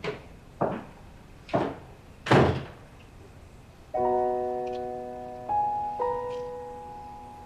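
Footsteps on a hard floor, then a door shutting with a thud about two and a half seconds in. About four seconds in, piano music starts with held chords.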